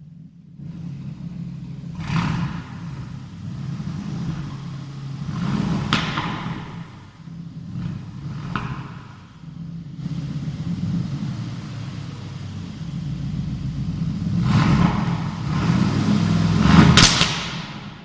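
Aston Martin Vantage's 4.0-litre twin-turbo V8 running, its note rising and falling several times with sharp crackles at the peaks, loudest near the end.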